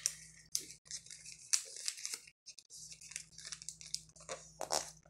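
Paper being folded and creased by hand: short scattered rustles and crinkles, with a louder rustle near the end.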